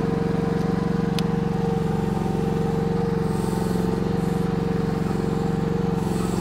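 Kymron YH14 mini excavator's engine running steadily below full throttle, with the hydraulics working as the boom is swung back to centre.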